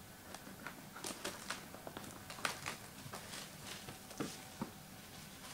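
Faint, scattered light clicks and rustles of trading cards and a cardboard card box being handled by hand, about ten small taps spread unevenly through.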